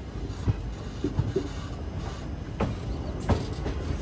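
Indian Railways express passenger coach running slowly on the track just after departure: a steady low rumble of wheels on rail with a few irregular knocks.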